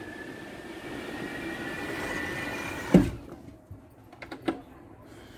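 Strong wind whistling through the gap of a cruise-ship cabin's open balcony door: a steady high whistle over rushing air that grows louder. About three seconds in the door shuts with a thud and the whistle stops, leaving a few small clicks.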